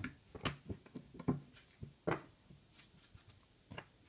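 Irregular light clicks and knocks from small tools and the circuit board being handled, with a few sharper clicks. The sharp ones are the metal alligator clips of a helping-hands stand letting go of the board.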